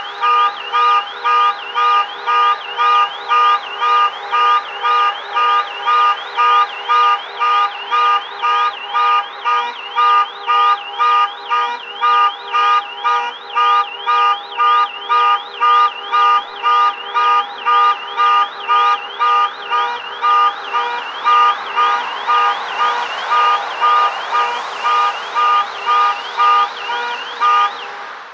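Car alarm sounding continuously: a loud, high-pitched electronic tone pulsing on and off about twice a second without a break.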